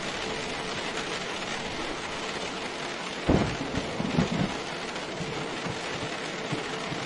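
Steady rain falling, an even hiss. About three seconds in comes a brief, louder low rumble lasting a little over a second.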